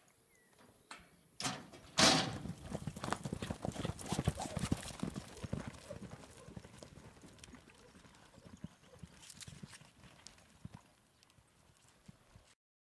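Horses galloping on arena dirt: dense, irregular hoofbeats that start with a sharp bang about two seconds in, then fade as the horses move away, cutting off suddenly near the end.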